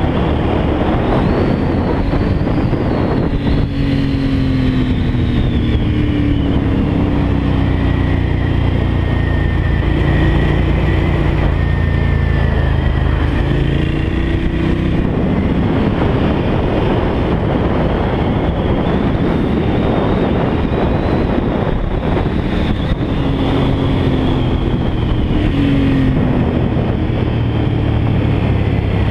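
Motorcycle engine on the move, its pitch rising and falling repeatedly as it is revved out and eased off through a series of bends, heard from on board over heavy wind and road noise.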